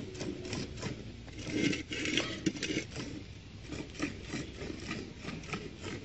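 Cow being milked by hand: squirts of milk hitting the milk in a steel bucket, several quick spurts a second in a steady rhythm as the teats are stripped in turn.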